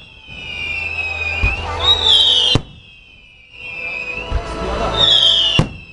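Aerial fireworks: high whistles falling in pitch, each ended by a sharp bang, twice, about two and a half and five and a half seconds in.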